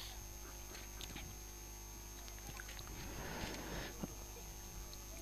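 Faint steady mains hum, with a few faint ticks and a brief faint rustle about three seconds in.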